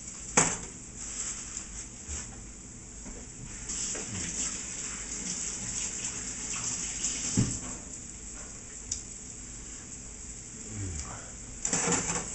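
Flour-dredged chicken breast sizzling in a pan on high heat, a steady hiss that swells in the middle, with a few knocks of pan or utensil.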